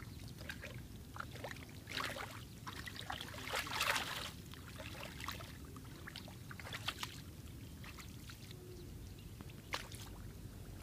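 Shallow muddy water splashing and sloshing as bare feet wade through a flooded rice field, in irregular small splashes, heaviest about two seconds in and again around four seconds in.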